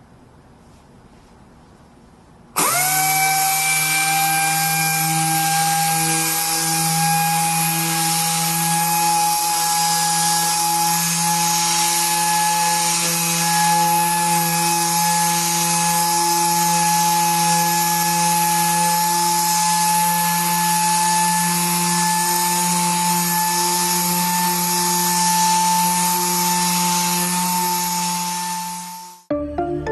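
Dynabrade Dynorbital Supreme self-generated vacuum random orbital sander, an air-powered tool, starting up about two and a half seconds in. Its whine climbs quickly to a steady high pitch, and it then runs steadily with a strong air hiss while sanding a wooden panel. It cuts off abruptly near the end.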